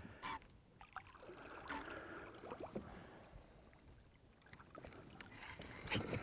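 Faint water lapping and splashing against the side of a small boat, with a couple of sharp clicks in the first two seconds.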